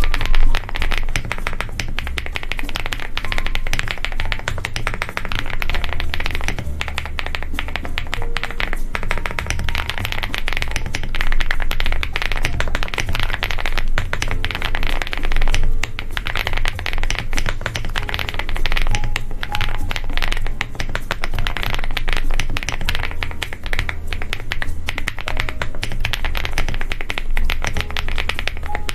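Continuous fast typing on a custom ZOOM TKL mechanical keyboard with a polycarbonate plate: a dense stream of deep, clacky keystrokes of the kind known as the 'mahjong' sound.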